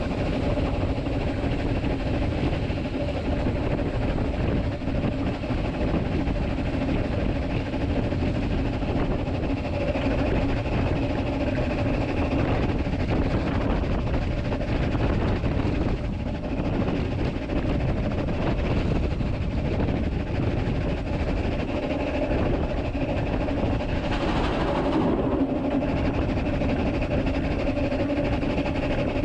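Narrow-gauge 0-4-2 saddle-tank steam locomotive running along the line, heard from its footplate: a steady rumble of wheels on rail and working motion, with a short rush of noise near the end.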